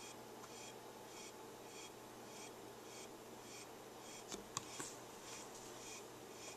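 Faint, regular ticking, about three soft ticks a second, over a low steady hum, with a few sharp clicks about four and a half seconds in.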